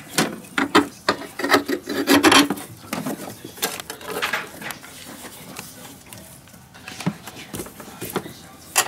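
Handling noise as a metal fan-switch bracket is worked onto a stud by gloved hands: rubbing and scraping with irregular clicks and knocks, busiest in the first three seconds, then sparser.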